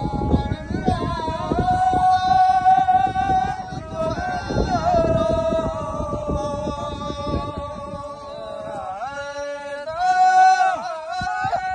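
A single voice singing a Rajasthani folk song in long, drawn-out held notes that slide slowly up and down in pitch. Irregular low thuds and rumble run beneath it until about two-thirds of the way through.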